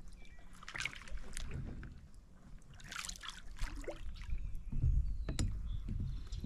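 Kayak paddle strokes in shallow, weedy water: water splashing and dripping off the paddle blades in short bursts, then low knocks and thumps from about two thirds of the way in.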